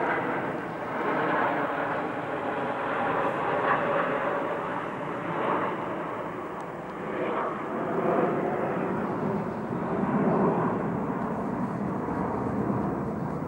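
Jet noise from a formation of BAE Hawk T1 jets flying overhead: a continuous rushing sound that swells and eases several times as the formation turns, loudest in the second half.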